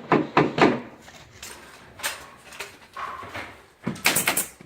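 Wooden window casing frame being knocked and shifted against the window opening while its edges are adjusted into line: a quick run of sharp knocks at the start, a few scattered knocks in the middle, and a dense burst of knocks and rubbing near the end.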